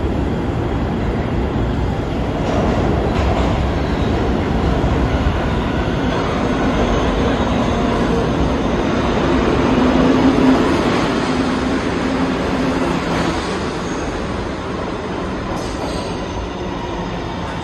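New York City Subway R211 train entering the station and running past along the platform: steady rumble and clatter of steel wheels on the rails, loudest about ten seconds in and easing off near the end, with a faint low hum in the middle.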